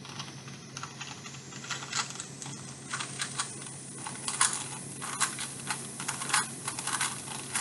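Plastic Rubik's cube being twisted, its layers clicking and clacking in quick, irregular turns, several a second.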